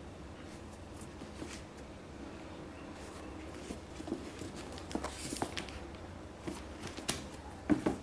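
Leather high-top sneakers handled and turned over: soft scattered taps and rustles, with a couple of sharper knocks near the end as the shoes are set down on a cardboard shoebox.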